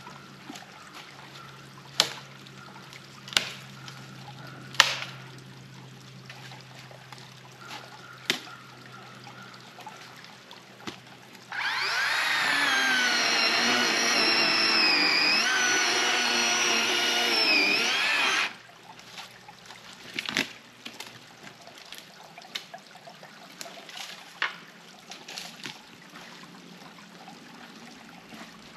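DeWalt 20V Max cordless battery chainsaw running for about seven seconds in the middle, its electric whine wavering and dipping in pitch as it cuts through a fallen tree. Around it, a stream trickles, with a few sharp knocks and snaps.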